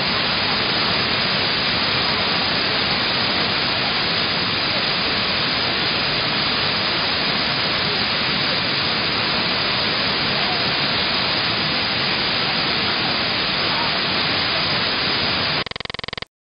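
Loud, steady hiss of noise like static, even throughout, changing briefly near the end before cutting off abruptly.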